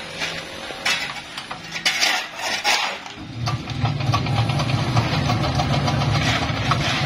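Concrete mixer's single-cylinder diesel engine starting and running with a steady low chug from about three seconds in, after a few sharp metal clinks and scrapes of hand tools.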